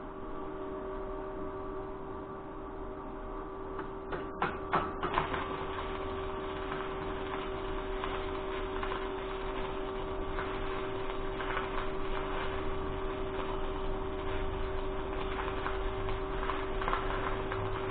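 Steady electrical hum, then about four seconds in a welding arc is struck with a few sharp cracks and settles into continuous arc-welding crackle as tooth holders are welded onto a steel rock-drill auger head.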